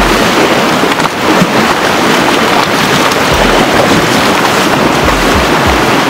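Loud, steady rush of the fast-flowing Zanskar River running open beside the frozen ice shelf, with occasional low rumbling bumps on the microphone.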